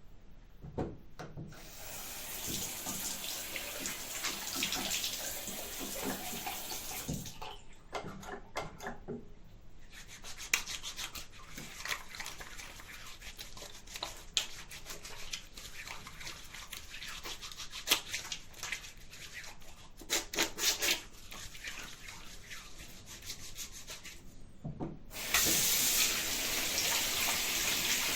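Hands rubbing together in liquid-soap lather, with wet squelching and clicks, after soap is pumped from a dispenser. Near the end a tap comes on and water runs steadily into a sink.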